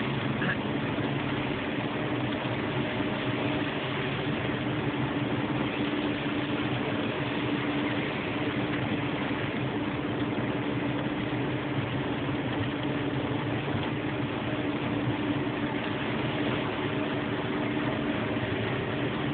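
Car's engine and tyre noise on a wet road, heard from inside the cabin while driving uphill: a steady hiss with an even low hum.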